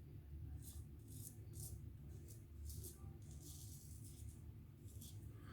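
Faint, quick scraping strokes against the stubble of the face, about two or three a second and irregular, over a low steady room hum.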